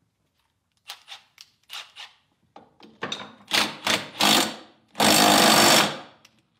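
A red cordless power tool runs at the flywheel's centre, first in a few short bursts and then in a steady run of about a second near the end, tightening the flywheel onto its tapered crankshaft. A few light knocks from handling metal parts come before it.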